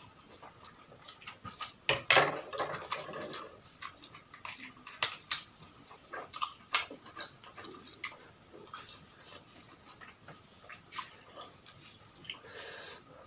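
Close-miked eating: a person chewing and crunching food, with many short sharp crunches and wet mouth clicks, the loudest bite about two seconds in.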